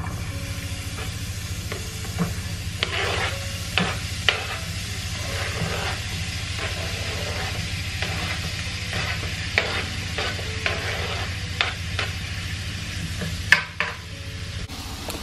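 Chopped onion and bell pepper sizzling in hot oil in a frying pan, with frequent short clicks and scrapes of a utensil stirring against the pan, over a steady low hum.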